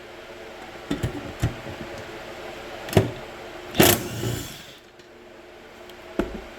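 Cordless impact wrench firing in short bursts, the loudest about four seconds in, with sharp metal knocks between, as the last seized rear hub bolts break free.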